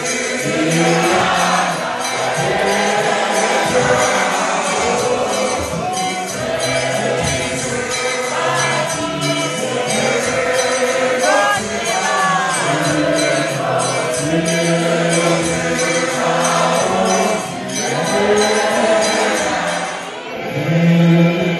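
A congregation singing a hymn together, many voices at once, to steady rhythmic hand clapping.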